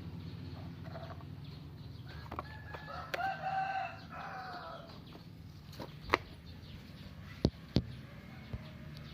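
A rooster crows once, a pitched call of about a second and a half, over a low steady hum. Later come three sharp knocks, the last two close together.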